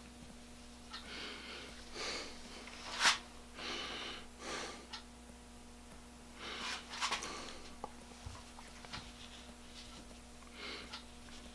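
A person breathing heavily through the nose close to the microphone, in hissy sniffs and exhales every second or two, with a few light clicks of small metal chuck parts being handled, the sharpest about three seconds in. A steady low hum runs underneath.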